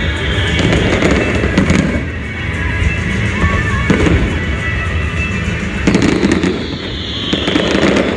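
Fireworks going off in quick succession, sharp bangs and crackle with deep booms, over music.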